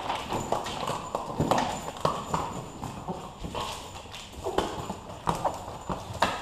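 A boxer dog's claws clicking and tapping irregularly on a tile floor as she chases and noses a balloon.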